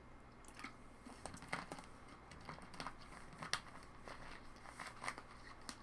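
Foil trading-card pack wrapper crinkling and tearing open, with scattered soft clicks of cards being handled. The crackles are faint and irregular, the sharpest about three and a half seconds in.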